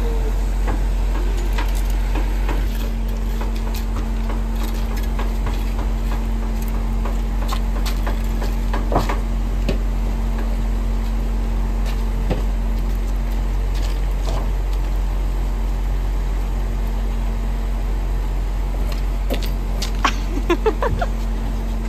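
Heavy diesel engines of a truck-mounted concrete pump and mixer lorry running steadily with a constant hum while concrete is pumped. A few short knocks, and a brief burst of laughter near the end.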